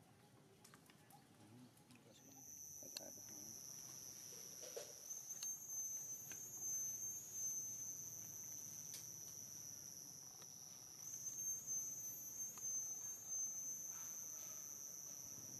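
Insects buzzing: one steady high-pitched tone that starts about two seconds in and holds on, swelling slightly now and then, with a few faint ticks.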